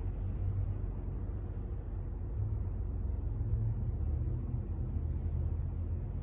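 Steady low rumble with a faint even hum, unchanging throughout, with no knocks or clanks from the barbell.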